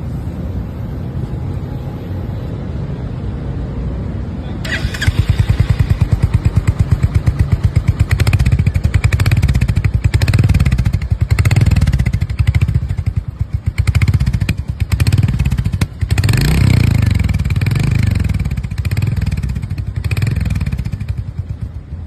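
Royal Enfield Hunter 350's single-cylinder engine running through its exhaust, first idling with a steady thump. About five seconds in it gets much louder as the throttle is blipped again and again, the revs rising and falling, with a short drop near the middle before more revving.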